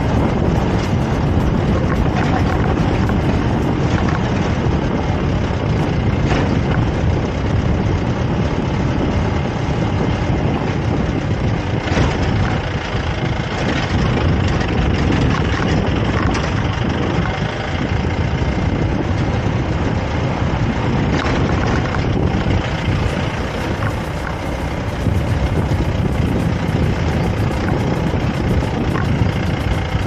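Steady, loud roar of a waterfall's rushing, falling water.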